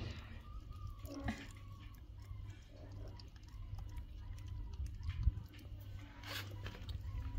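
Vervet monkey chewing soft food taken from fingers through a wire cage, with small wet mouth clicks and a few sharper ticks, over a steady low hum.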